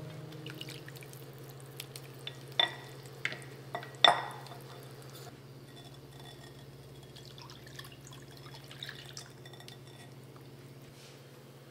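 Glass clinking sharply four times, the last the loudest, followed by soy milk being poured from a glass bowl into a pan and worked with a wire whisk, giving light ticks and scrapes. A steady low hum runs underneath.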